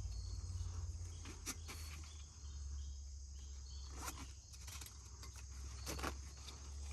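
Steady insect chorus with a few short soft knocks and clicks from handling the strap and aluminium frame of a climbing tree stand while it is strapped up.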